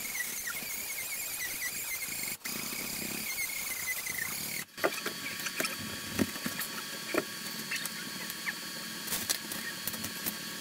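Old wooden wall boards being worked loose and pulled out of a framed wall opening by hand: scattered knocks and cracks of wood. A thin high squeal wavers in pitch through the first part, and the sound cuts out briefly twice.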